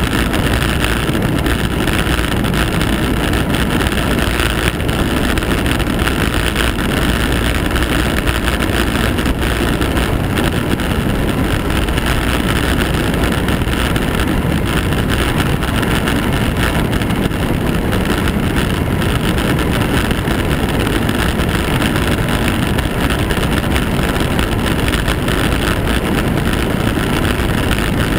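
Steady, loud wind rush buffeting the microphone of a camera mounted on a vehicle descending a mountain road at speed, with no distinct engine note.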